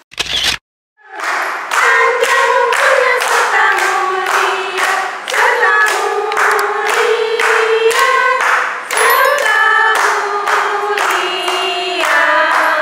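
A group singing a birthday song together, clapping their hands along to the beat.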